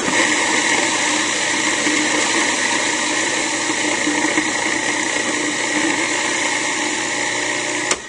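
Cuisinart Pro Classic food processor running steadily, its blade chopping raw cauliflower and parsnip pieces. It starts suddenly and cuts off just before the end.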